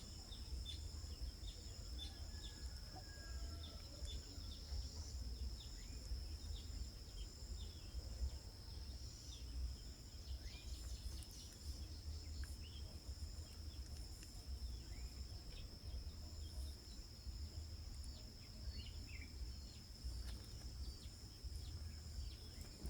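Outdoor ambience: many short bird chirps scattered over a steady high-pitched insect trill, with a constant low rumble underneath.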